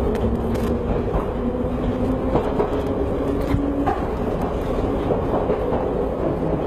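Underground train running, heard from inside the carriage: a steady rumble of wheels on track, with a motor whine that steps up in pitch over the first few seconds.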